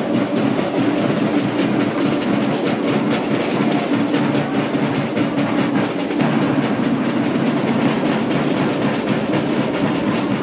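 Processional snare drums beating a rapid, continuous roll over steady crowd noise.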